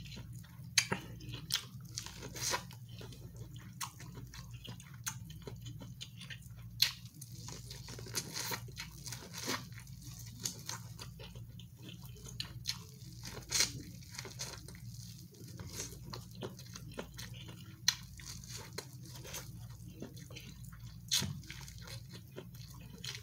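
A person biting and chewing corn on the cob: many short crunches, wet mouth clicks and lip smacks at an irregular pace, over a low steady hum.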